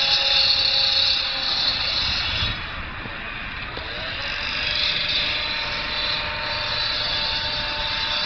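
Steady drone of distant engines, a hissy rush with a faint steady hum whose pitch lifts slightly about halfway through.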